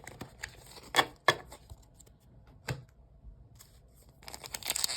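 A few sharp clicks and taps from trading cards being handled. About four seconds in, a dense crinkling starts: a foil booster-pack wrapper being picked up and handled.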